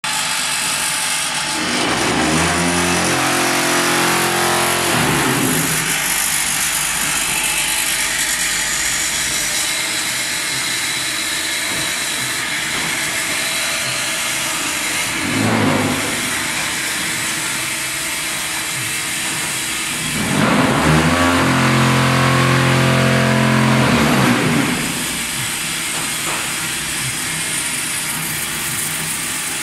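Automatic concrete block-making plant running: a steady clatter and whir of machinery, with two spells of a louder, pitched hum lasting three to four seconds each, about two seconds in and about twenty seconds in, and a short swell between them.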